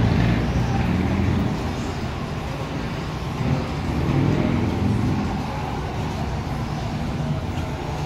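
Metro train E10 standing at the platform, its onboard equipment giving a steady low hum over general station noise.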